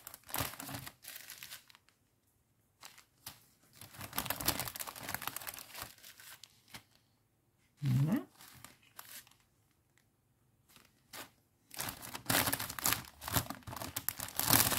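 Small plastic zip-lock bags of diamond painting drills crinkling as they are handled, in several spells with quiet gaps between.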